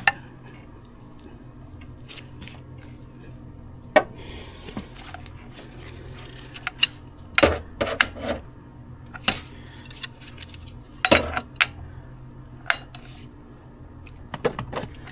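Steel breaker bar and socket clinking and knocking against engine metal while bolts are worked loose: a dozen or so sharp, irregularly spaced metallic clinks, several bunched near the middle.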